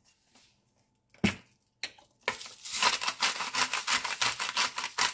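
A couple of light knocks, then a hand-twisted pepper grinder cranked rapidly, crunching peppercorns in a fast, even rhythm of about five twists a second that starts a little past halfway.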